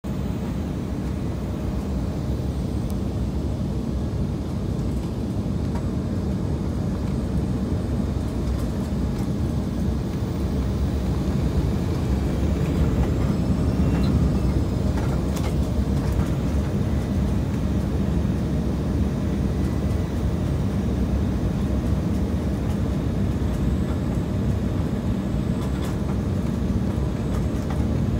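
Steady low rumble of jet engines and rushing air heard inside an airliner cabin on approach, swelling slightly about halfway through.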